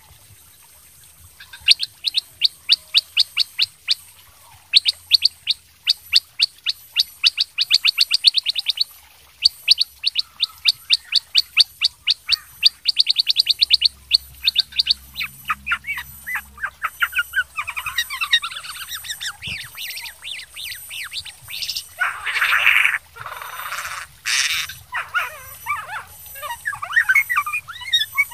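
Kutilang sutra (black-headed bulbul) singing: long runs of quick, sharp repeated notes, several a second and speeding up in places, then looser, more varied warbling with a harsh rasping burst near the end.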